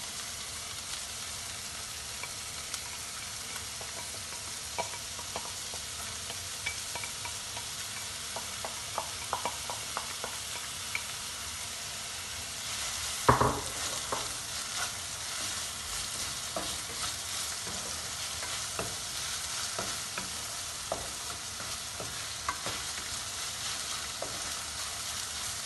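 Chopped onion sizzling in hot oil in a non-stick frying pan, stirred with a wooden spatula that scrapes and clicks against the pan. There is one sharp, louder knock about halfway through.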